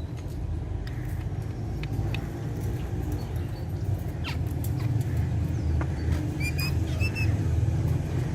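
Steady low rumble with scattered light clicks, and two short high bird chirps about six and a half and seven seconds in.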